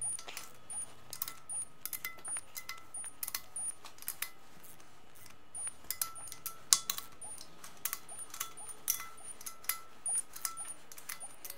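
Torque wrench ratcheting on the case-half perimeter nuts of an aircooled VW Type 1 engine case, a run of light metallic clicks at irregular intervals, a few a second, each with a faint ring.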